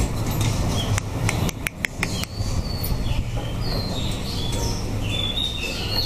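Small birds chirping, with short high calls and quick pitch glides scattered throughout, over a steady low rumble. A quick run of sharp clicks comes about a second and a half in.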